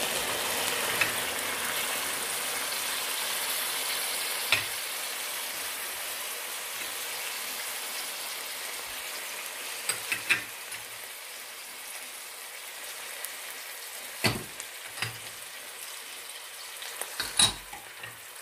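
Chicken and green beans sizzling in a frying pan with the sauce just poured in, the sizzle slowly dying down. A wooden spatula stirring knocks sharply against the pan a handful of times.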